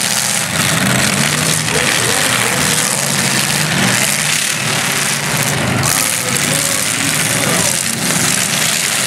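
Demolition derby cars' engines running and revving together over a dense, steady wash of noise.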